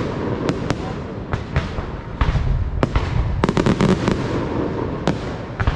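Aerial fireworks display: a rapid series of sharp bangs and crackling reports over a continuous rumble of shells bursting, with a quick cluster of cracks about three and a half seconds in.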